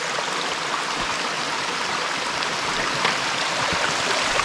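Small mountain stream flowing in a steady rush of water; it is the runoff that has been running down the hiking trail itself.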